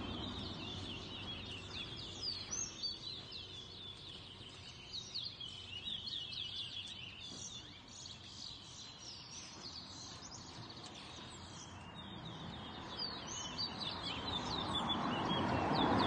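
Caged towa towa (chestnut-bellied seed finch) singing: runs of quick, high, down-slurred notes repeated in bursts. Background voices swell near the end.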